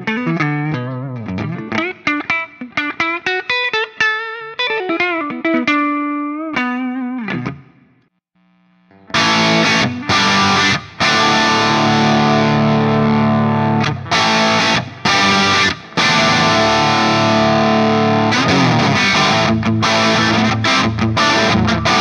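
Gibson Les Paul electric guitar played through a Mesa/Boogie Dual Rectifier Roadster tube amp. It starts with clean single-note lines and bent notes on the clean channel. After a short pause at about eight seconds it switches to a thick distorted crunch from the Brit-mode channel, broken by a few brief stops.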